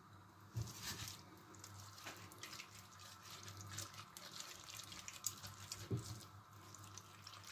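Hands kneading and squishing a wet grated-onion and spice chermoula in a glass bowl and rubbing it onto meat: faint wet squelches and small clicks, with a soft knock against the bowl about half a second in and another near six seconds, over a steady low hum.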